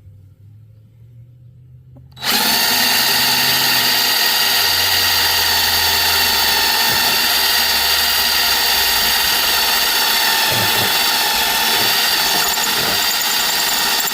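Power drill starting about two seconds in and running steadily at full speed, drilling out a rivet that holds the recoil pull-cord housing onto a lawn mower engine; it stops abruptly at the end.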